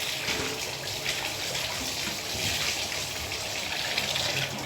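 Water running steadily from a tap, filling a bucket.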